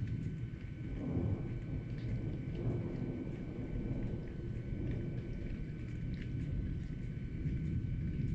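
Thunder rumbling low and continuously through a thunderstorm, with faint scattered ticks of rain and a thin steady high tone in the background.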